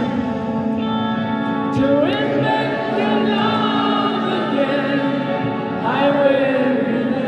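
Live rock concert music in an arena: singing over sustained held chords, with new sung phrases coming in about two seconds in and again near the end.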